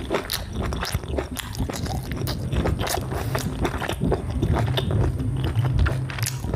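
A person chewing and biting cooked liver close to the microphone, with many short, irregular mouth clicks over a low steady hum.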